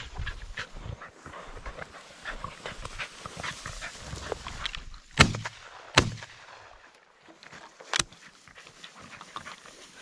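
Hunting dog panting as it works through dry grass, with steady rustling, then two sharp shotgun shots a little under a second apart about five seconds in and a fainter crack near eight seconds.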